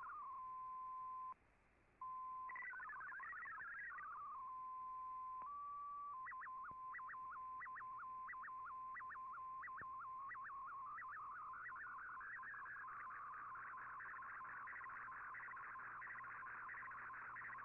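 MFSK digital data signal from the Shortwave Radiogram broadcast, heard through an Icom IC-R8600 receiver in AM mode: warbling text tones, a steady tone with a brief dropout about a second in, more warbling, then steady tones and a run of short regular beeps as an MFSK picture transmission starts. From about ten seconds in it turns into a dense, fast-warbling tone as the image data is sent.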